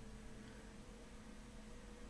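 Near silence: faint room tone with a faint, steady low hum.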